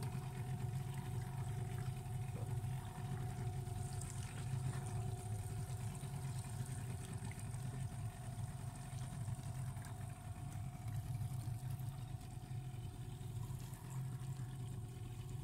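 A boat's motor running steadily at an even speed: a constant low hum with a couple of fainter steady higher tones over it, and the wash of water beneath.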